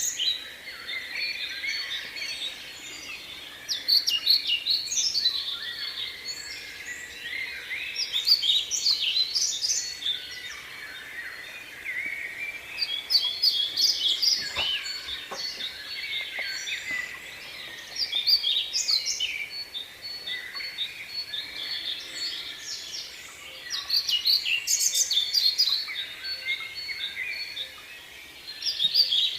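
Small birds chirping and twittering continuously, several calls overlapping, in louder flurries every few seconds.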